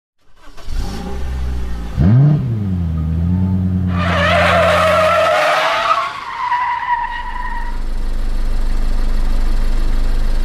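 Car sound effects: an engine revs with a swoop up and down in pitch about two seconds in, then runs steadily. From about four seconds in, tyres squeal, the squeal falling in pitch.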